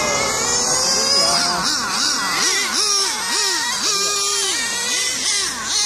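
Motors of 1/8-scale RC cars racing around the track, their high-pitched buzz rising and falling over and over as they accelerate and brake through the corners.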